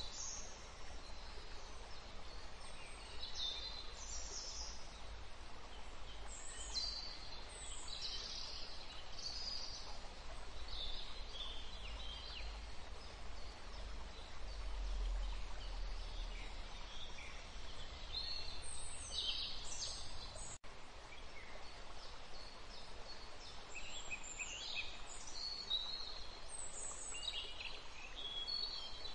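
Small birds chirping and twittering in many short, high calls, some sliding downward, over a steady faint hiss. The sound cuts out for an instant about twenty seconds in.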